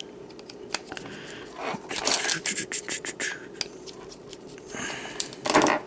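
Small clicks and scraping of a stripped-down plastic camera chassis being handled and turned over in the fingers, with a louder burst of rustling noise near the end.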